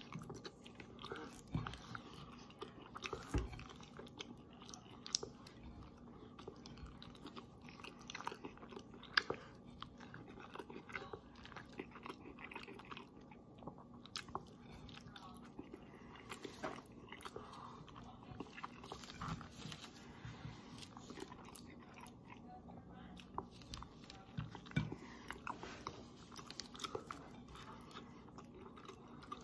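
A person eating pesto fusilli face-first off a plate, without hands: faint, irregular chewing and mouth sounds with scattered small clicks.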